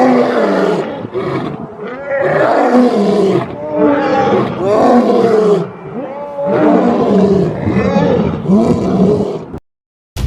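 Lions growling and snarling in repeated rough bursts of a second or two each, their pitch bending up and down. The sound cuts off abruptly shortly before music starts near the end.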